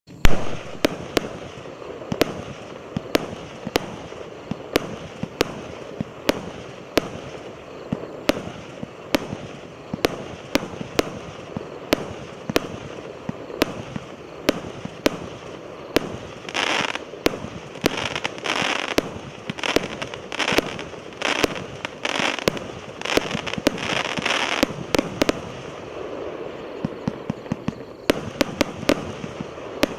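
A 100-shot 'Sevastopol' consumer firework cake firing. Sharp launch shots come about two a second, then about halfway through there is a run of longer noisy bursts roughly one a second, and the shots come quicker near the end.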